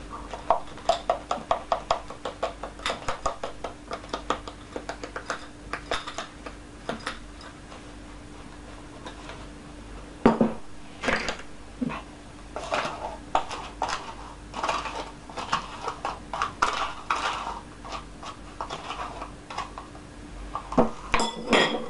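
Kitchen clinking and tapping as flour is measured out: a quick run of light taps of a glass jar against a plastic yogurt cup over the first several seconds, then scattered louder knocks and a metal spoon clinking as the flour is spooned into the bowl. A faint steady hum runs underneath.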